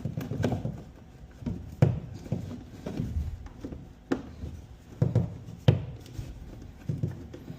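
Electrical wire being handled and worked into place: rustling and low handling noise with several sharp knocks and clicks.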